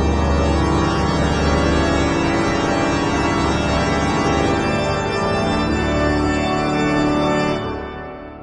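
Background music on an organ: sustained, held chords that fade out near the end.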